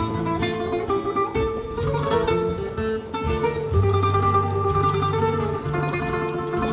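Instrumental background music: a plucked guitar playing quick, busy notes over low held bass notes.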